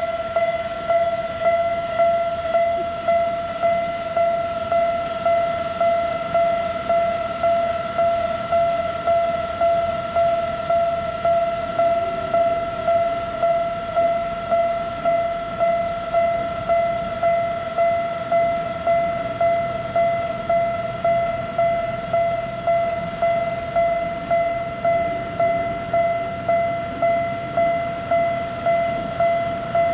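Japanese railway level-crossing warning bell ringing, a steady electronic ding repeating evenly about one and a half times a second at one unchanging pitch.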